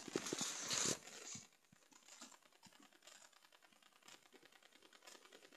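Rustling handling noise for about the first second, then faint, irregular light clicks.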